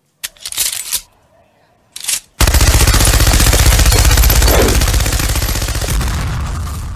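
Machine-gun sound effect: after two short, sharp noises, a long burst of rapid automatic fire starts about two and a half seconds in and fades away near the end.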